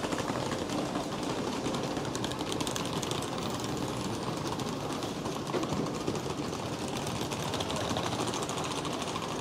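Suitcase wheels clattering rapidly and evenly over the paving of a railway platform, over a steady rumble from the waiting passenger train and station.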